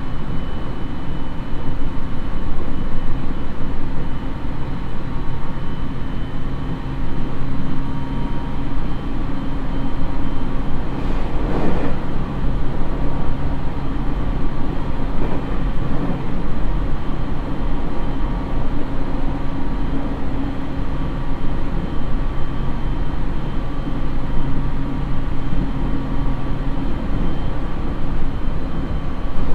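Interior running sound of a JR East 701-series electric train (Mitsubishi IGBT-VVVF inverter, MT65 AC traction motors) cruising at about 90 km/h: steady motor and inverter hum over wheel-on-rail rumble. A brief louder rush comes about eleven seconds in, and a smaller one near sixteen seconds.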